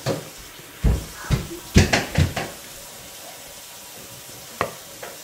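Kitchenware knocking and clattering on a counter: a quick run of knocks and clinks about a second in, then one more knock near the end.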